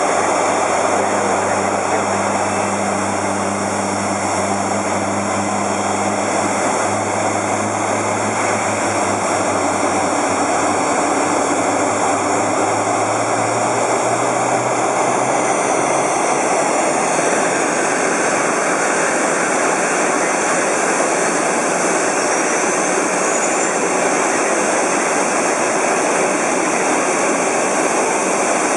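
Airbus A380's Rolls-Royce Trent 972 turbofan engines running on the ground: a steady, loud rush of air with a high hiss. A low hum underneath fades out about halfway through.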